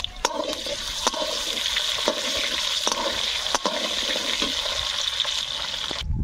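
Potato chunks sizzling in hot oil in a metal karahi, a steady hiss, with about five sharp clicks of a wooden spatula against the pan as they are stirred. The sizzle cuts off suddenly near the end.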